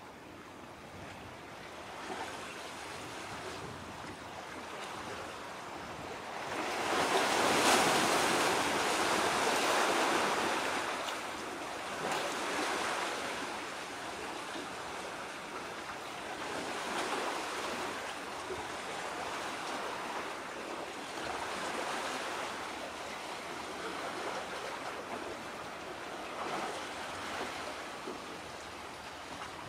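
Waves washing in against the shore with some wind. It swells to its loudest about seven to ten seconds in, then rises and falls more gently.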